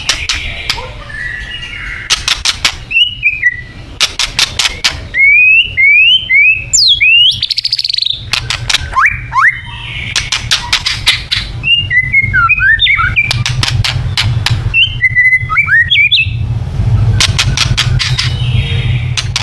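White-rumped shama singing a varied song of clear whistled notes and sweeping glides, broken by rapid harsh clicking rattles, over a steady low hum.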